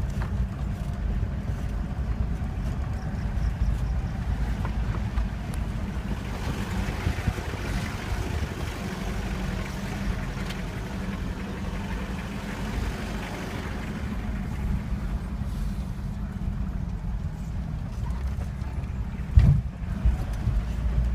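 A vehicle driving, with a steady low engine and road rumble. One sharp knock comes near the end.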